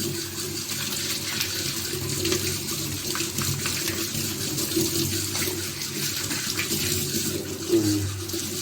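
Water running steadily from a tap while a small plastic washing-machine part is washed under it, with faint scratchy sounds of scrubbing.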